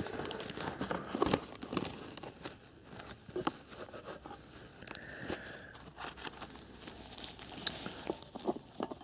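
Newspaper and tissue packing paper crinkling and rustling as hands move it around in a cardboard box, with many irregular small crackles.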